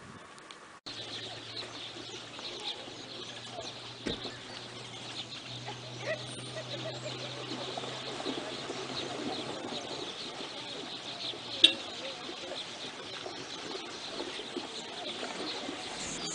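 Many birds calling over one another in a continuous chatter. A faint steady low hum runs under it and stops with a single sharp click about two-thirds of the way through.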